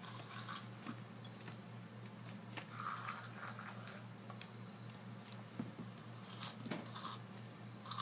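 African grey parrot chicks making a few short, faint, raspy scratchy sounds, the loudest about three seconds in, over a steady low hum.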